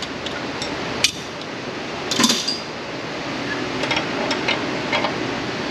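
Metal clicks and clinks of a wrench working on a brake hose fitting: one sharp click about a second in, a louder clatter just after two seconds, then a few light ticks, over a steady background hiss.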